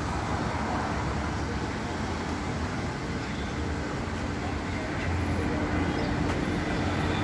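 Steady road traffic noise, a low rumble of vehicles, getting a little louder about five seconds in.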